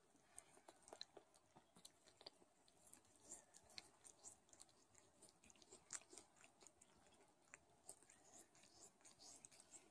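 Faint, irregular wet clicks and smacks of a Don Sphynx mother cat licking her newborn kittens clean.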